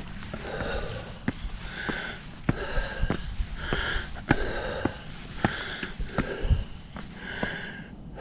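A hiker breathing hard while climbing a steep trail: heavy breaths about once a second, with footsteps striking gravel and rock between them.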